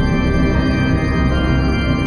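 Background music of sustained, held organ chords with a slow, ambient feel.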